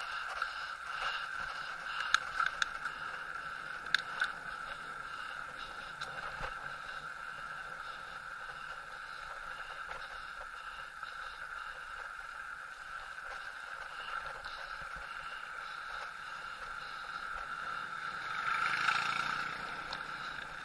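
Steady whirring hum of a bicycle ride on a paved lane, with a few sharp rattles about two and four seconds in and a short swell in loudness near the end.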